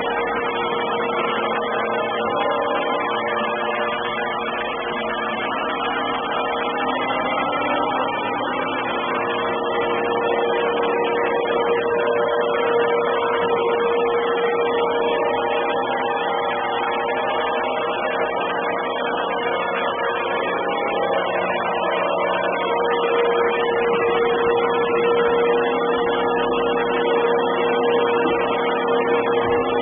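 Samsung robot vacuum cleaner running: a steady motor-and-fan hum with a constant whine, heard distorted through the camera's microphone.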